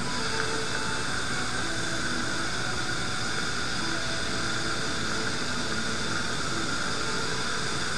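Steady, unchanging hiss with a brighter band in the upper middle range, and faint short tones now and then underneath.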